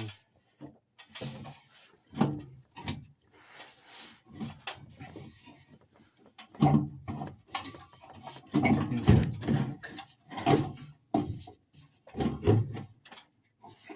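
Irregular scraping, rubbing and knocking of sheet metal as a tightly fitted furnace blower assembly is worked loose from its cabinet, busiest in the second half.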